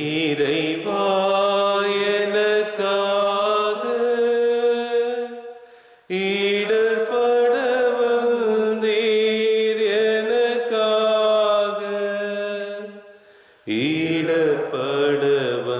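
Unaccompanied singing of a slow chanted hymn verse, in long held phrases. The voice breaks off briefly twice, about six seconds in and near the end, before the next phrase.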